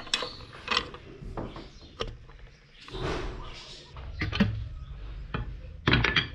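Steel C-clamp being handled on a wooden knife-handle block and set on a wooden workbench: scattered clicks and knocks of metal and wood, with a louder cluster of knocks near the end.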